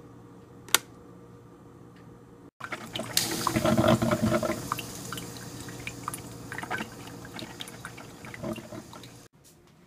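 Mr. Coffee drip coffee maker: one sharp click of its power switch under a second in. From about two and a half seconds in, the machine gurgles and hisses while brewing, with coffee dripping into the glass carafe.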